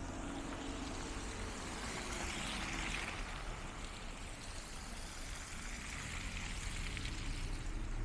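Cars passing on a wet street after snow: tyre hiss swelling up and fading twice, over a low engine hum.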